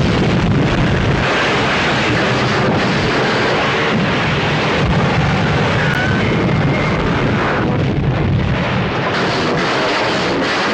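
Loud, sustained crashing and rumbling from a film's destruction sequence, heavy low rumble with no pauses.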